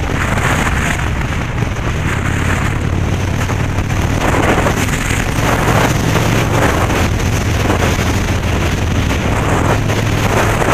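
Motorcycle engine running steadily under heavy wind noise buffeting the microphone while riding.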